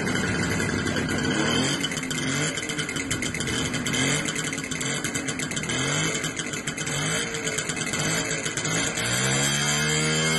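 Small two-stroke Simson motorcycle engine revving in repeated short blips, then one longer rev up and back down near the end as the bike pulls away under the load of four riders.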